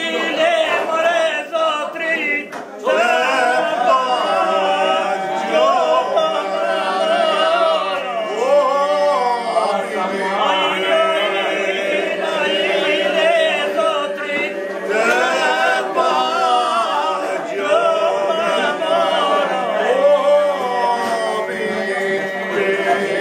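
Albanian traditional unaccompanied men's group singing (këngë me zë, Prespa style): an ornamented, wavering melody over steadily held drone notes, with a brief breath pause about three seconds in.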